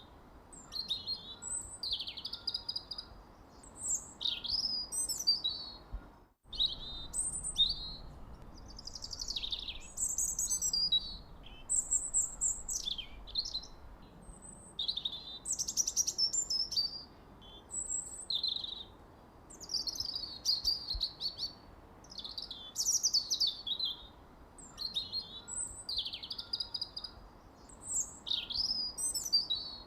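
Songbirds chirping and singing in quick, varied high phrases, one after another with short pauses between, over a faint steady background hiss. The sound cuts out completely for a moment about six seconds in.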